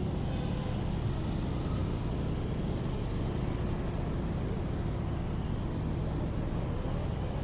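Steady rumble of city road traffic, cars and buses, forming an unbroken urban background.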